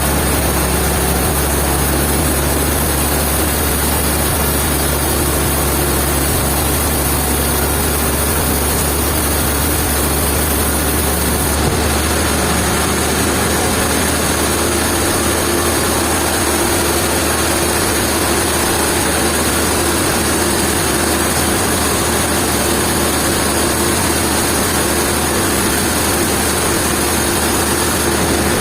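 A heavy engine running steadily, with a low steady drone; its tone changes slightly about twelve seconds in.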